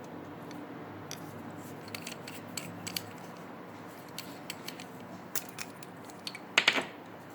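Light scattered clicks and taps of hard plastic parts as a hardened fiber-optic connector and adapter are handled, with a louder quick cluster of clicks near the end.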